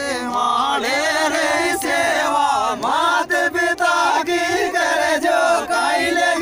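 Several men singing a Meenawati folk song (Meena geet) together, their voices overlapping, with one voice holding a steady note underneath for a stretch in the middle.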